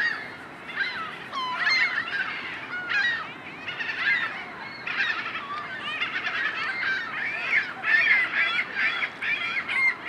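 A flock of birds calling continuously: many short, overlapping calls that rise and fall in pitch, with no break.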